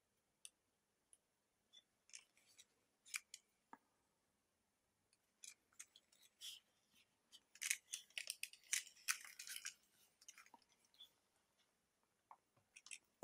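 Gloved fingers handling a Panasonic Lumix GH5 camera body: scattered soft clicks and rubbery rustles of the gloves against the camera, busiest in a run of crackling about eight to ten seconds in.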